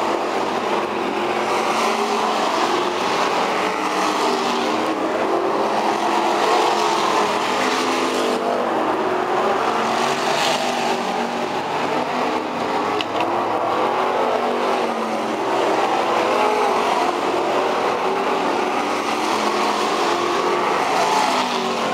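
Several outlaw street stock dirt-track race cars running at racing speed around the oval. Their engines overlap in a steady, loud sound, with pitches rising and falling as the cars come off the throttle and back on through the turns.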